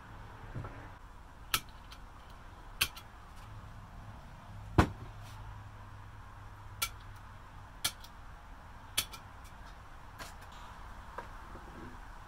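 Sharp, separate clicks and taps of hand tools and a wooden block being handled on a workbench while the end of a square handle blank is marked out, with one louder knock about five seconds in.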